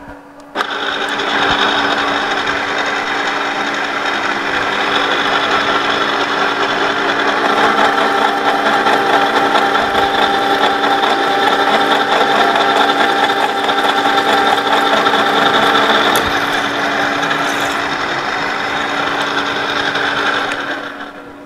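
An 18 mm four-flute HSS end mill on a conventional milling machine plunge-cutting into 20 mm ST 41 mild steel under hand feed. It makes a loud, steady cutting noise with several whining tones, over the hum of the running spindle. The cut starts abruptly about half a second in and fades away near the end.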